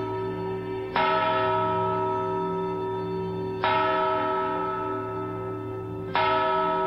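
Large clock-tower bell tolling the hour: three strikes about two and a half seconds apart, each ringing on and fading into the next.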